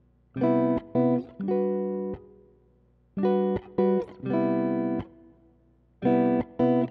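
Background music: a plucked guitar playing three short phrases of notes, each followed by a brief pause.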